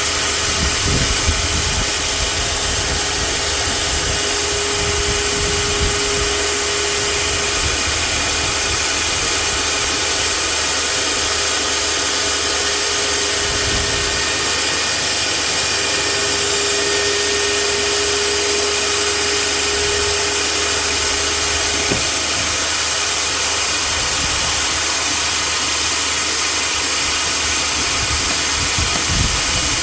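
Meec Tools 2000 W table saw with a 250 mm blade running steadily, a loud, even motor-and-blade noise with a faint steady tone that comes and goes twice.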